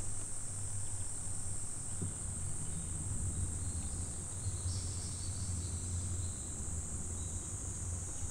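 Insects buzzing steadily in a high-pitched drone, over a faint low hum that fades out about two-thirds of the way through.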